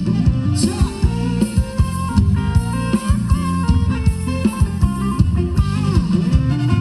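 Band playing upbeat Thai ramwong dance music: a drum kit keeps a steady beat under bass and a guitar melody.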